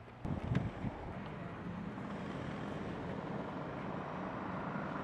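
A few thumps in the first second, then steady background noise with a low hum.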